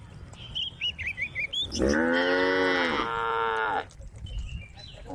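Cow mooing: one long call of about two seconds that drops in pitch at its start and breaks briefly partway through. A few small bird chirps come just before it.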